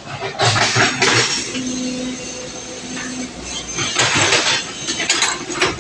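Excavator at work: a series of clanks and crashes of material being handled, with a steady machine tone under them in the middle.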